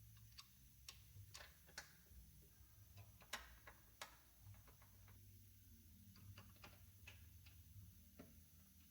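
Near silence with faint, irregular clicks of hand tools on metal, about a dozen spread unevenly, over a low hum.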